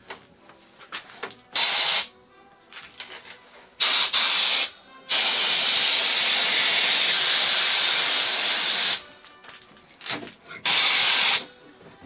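Compressed-air blow gun fired in bursts of hissing, used to help release a carbon-fiber part from its mold: a short blast about one and a half seconds in, another near four seconds, a long one of about four seconds from five seconds, and a last short one near eleven seconds. Light taps and scrapes come between the blasts.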